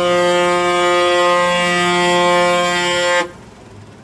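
Vehicle horn held in one long, steady blast that cuts off suddenly about three seconds in.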